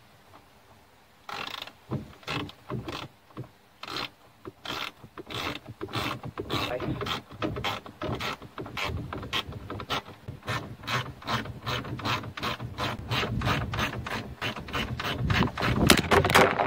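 Hand ratchet wrench clicking through quick back-and-forth strokes as a fastener is turned, a run of sharp clicks that starts about a second in and grows faster and louder toward the end.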